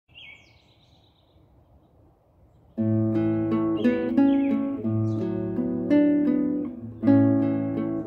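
A bird calls briefly at the start over quiet woodland ambience; about three seconds in, a nylon-string classical guitar begins playing slow plucked chords and melody notes, with another short bird call partway through.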